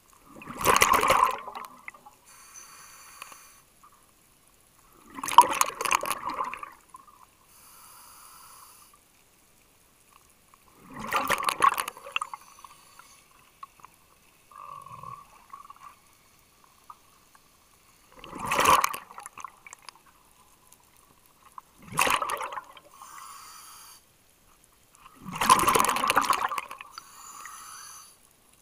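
Scuba diver breathing through a regulator underwater: six loud rushes of exhaled bubbles a few seconds apart, each followed by a fainter hiss of the inhale through the demand valve.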